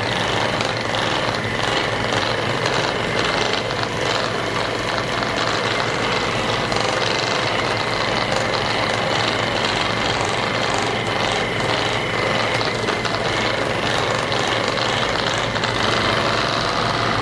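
Handheld percussion massage gun running steadily, working a patient's muscles as the first step of a chiropractic treatment.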